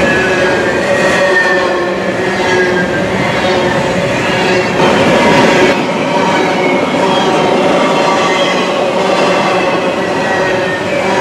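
Double-stack intermodal well cars of a freight train rolling past close by: a steady, loud rumble and rattle of wheels on rail, with faint squealing tones from the wheels.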